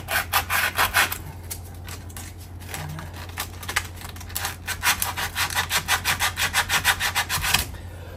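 Coarse 80-grit sandpaper rubbed by hand on the metal rear wheel hub of a Sunbeam Imp Sport, scuffing it clean in quick back-and-forth strokes, about four a second. The strokes stop about a second in, start again after about two seconds, and stop shortly before the end.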